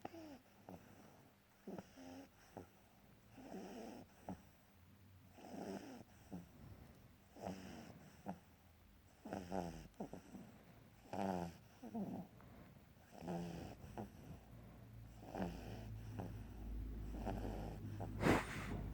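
A pug snoring: fluttering, rattling snores come with each breath, roughly every two seconds, as is typical of the breed's short, flat-faced airway. Near the end there is one louder, sharper sound.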